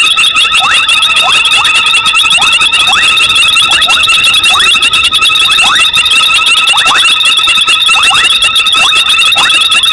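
Night chorus of frogs and insects: a dense, high, pulsing trill runs throughout, with many short upward-sweeping calls, one or two each second.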